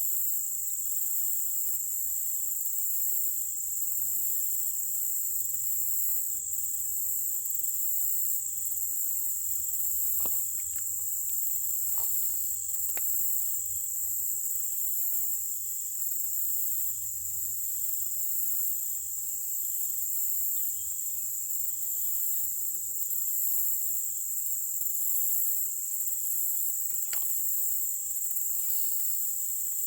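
Steady high-pitched insect chorus, a constant buzzing that swells slightly in slow pulses, with a few faint clicks and taps in the middle and near the end.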